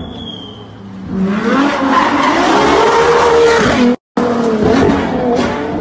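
Sports car engine revving hard as the car accelerates, its pitch climbing and dipping through the gears, after a brief high squeal near the start. The sound drops out for a moment about four seconds in, then the engine carries on.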